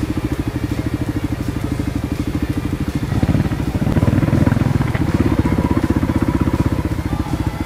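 Kawasaki KLX250S dual-sport motorcycle's single-cylinder four-stroke engine running at low revs, a quick, even beat of firing pulses. It gets louder with more throttle about three seconds in and eases back again a couple of seconds later.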